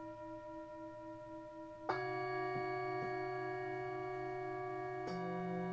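Tibetan singing bowls struck one after another with a mallet, playing a short scale. A first bowl is still ringing, a louder strike comes about two seconds in and another about five seconds in, and each new note rings on over the others.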